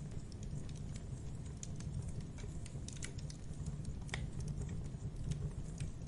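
Wood campfire crackling: many irregular crackles and pops over a steady low rumble, with one sharper pop about four seconds in.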